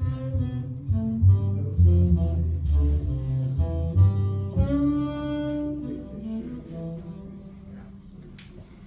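Instrumental passage of a jazz ballad played over a high-end hi-fi system in a demo room, with bass notes under a melody and a long held note about five seconds in; the music gets quieter after about six seconds.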